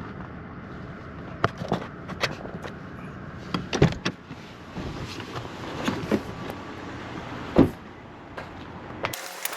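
Scattered knocks and clunks over a steady background hum, with two loud thumps, one about four seconds in and one about seven and a half seconds in.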